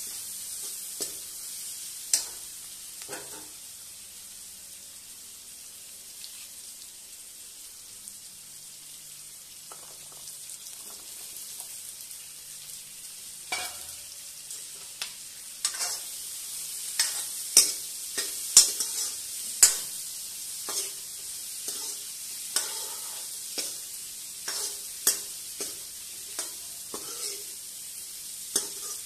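Green chillies and karonda berries frying in oil in an aluminium kadhai, with a steady sizzle. A steel ladle scrapes and knocks against the pan as they are stirred. There is a louder clatter about halfway through, and the knocks come thick and fast in the second half.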